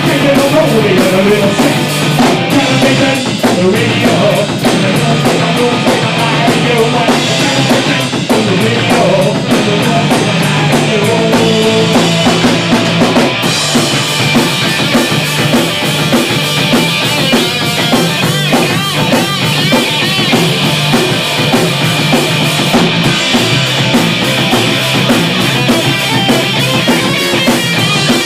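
Loud, fast rock music from a band: a full drum kit with a pounding bass drum, driven by guitars.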